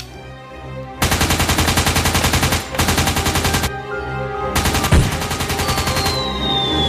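Rapid automatic gunfire sound effects in three bursts over background music, with a descending whistle starting near the end.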